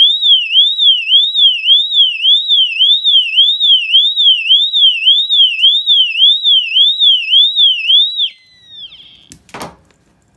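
Wheelock AES-EL1-WS-24 fire alarm horn strobe sounding its siren tone: a loud, high-pitched wail sweeping up and down about two and a half times a second. It cuts off with a short falling tail about eight seconds in, and a thump follows a second later.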